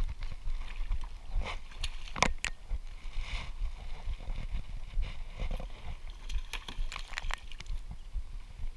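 Water slapping against the hull of a plastic Hobie kayak, with wind rumble on the microphone. A few short, sharp knocks and splashes come about one and a half to two and a half seconds in and again around seven seconds.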